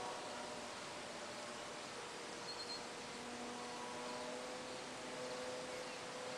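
Distant electric model airplane in flight: the faint, steady hum of its Graupner Speed 600 brushed motor and propeller, its pitch shifting slightly, over an even hiss.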